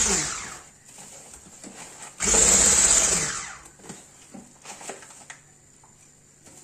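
Electric hand mixer's motor whirring with its twin beaters in cake batter, louder in two surges of about a second each, at the start and again about two seconds in, with a quieter steady hum between.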